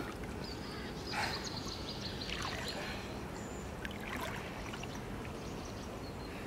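Water lapping and light splashing as a wels catfish moves at the surface beside the boat, with one brief, louder splash about a second in.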